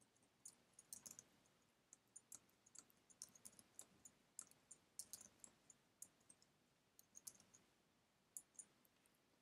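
Faint computer keyboard typing and mouse clicks: dozens of short, irregularly spaced clicks as account numbers are keyed into form fields and chosen from drop-down lists.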